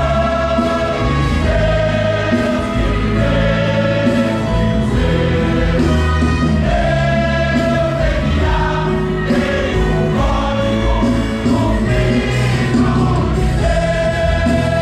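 Gospel music: a choir singing long held notes over a steady low accompaniment.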